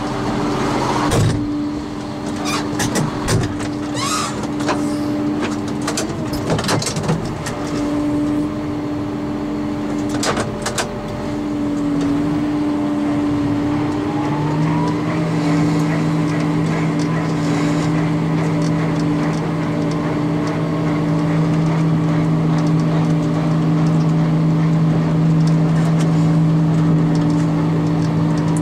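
An engine running steadily under load, with a second, lower drone joining about halfway through. Clattering knocks and clicks sound over it in the first ten seconds or so.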